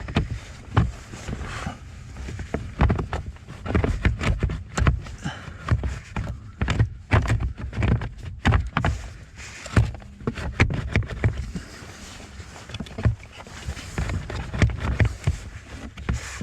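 Irregular knocks, clicks and scraping of hard plastic parts being handled as a car's heater blower fan motor is pushed into its housing and twisted to lock it in place.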